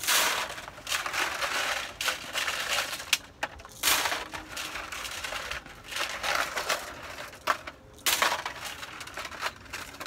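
Crinkling and crunching of plastic sheeting and plastic plant pots being handled, in bursts of about a second each with small clicks and knocks between.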